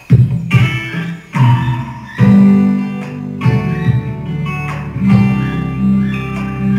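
Acoustic guitar being strummed: a string of chords, each struck sharply and left to ring.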